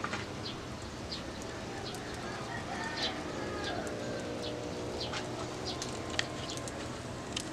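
Chickens clucking and small birds chirping in the background, with scattered sharp crackles from the wood fire.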